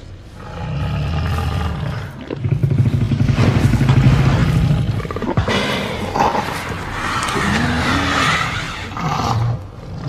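Tyrannosaurus rex–style monster roar sound effect: a low rumbling growl, then a long, loud roar about two to five seconds in, followed by a higher, wavering bellow.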